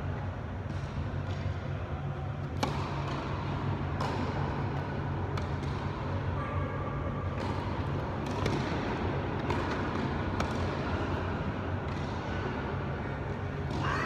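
Tennis ball struck by racquets and bouncing on the court during a doubles rally: single sharp pocks about every second or so, in a large indoor hall. A steady low hum runs underneath.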